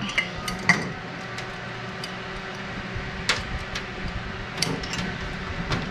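Excalibur food dehydrator running with a steady fan hum, just started on its drying cycle, with a few scattered light clicks and taps as a glass jar is handled.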